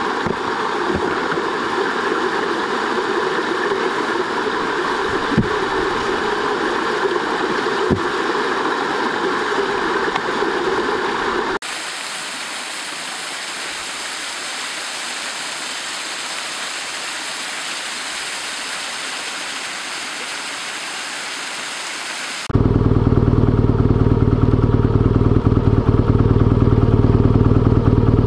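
Three clips cut together: a BMW R1200GS boxer-twin motorcycle running on the road, then from about twelve seconds in a quieter, steady rushing like running water, then from about twenty-two seconds in a louder, deep engine rumble.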